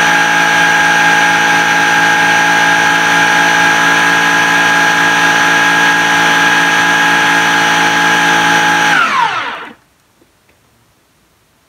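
Countertop blender running steadily at high speed, blending a thick paste, with a steady whine. About nine seconds in it is switched off and the motor winds down, its pitch falling, until it stops.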